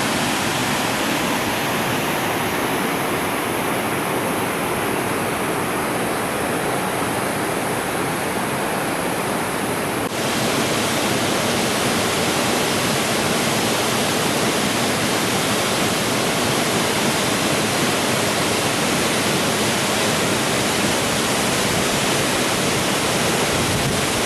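Waterfall: a steady, even rush of falling water. About ten seconds in, it abruptly turns brighter and a little louder.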